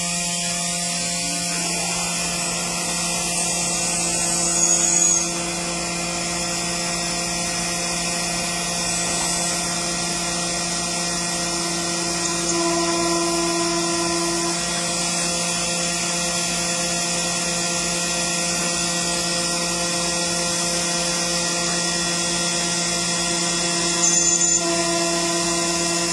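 CNC engraving machine running: a steady high-speed spindle sound with a hiss, with brief louder stretches about four seconds in and again near the end.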